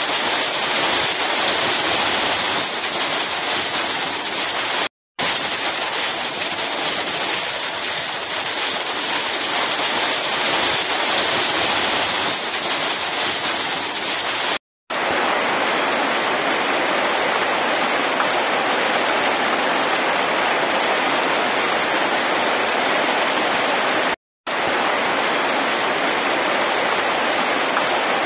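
Heavy rain pouring down, a steady dense hiss, which cuts out to silence for a split second three times.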